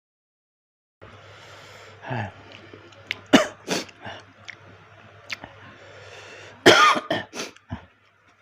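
A person coughing and clearing his throat while eating very spicy food. There are a few short sharp coughs in the middle and the loudest burst of coughing near the end.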